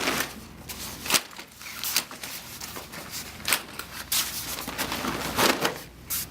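Folded play yard's frame and fabric being handled: an irregular string of clicks and knocks with rustling between them.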